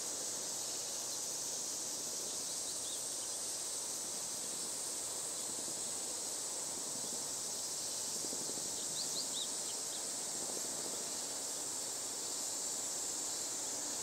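Steady high-pitched insect chorus, with a few faint short bird chirps about two seconds in and again about nine seconds in.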